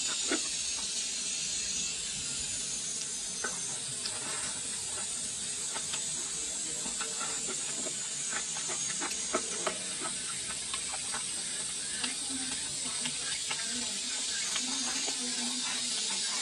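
Close-miked eating: chewing and wet mouth sounds with scattered sharp clicks as chicken legs are bitten off the bone, over a steady high hiss.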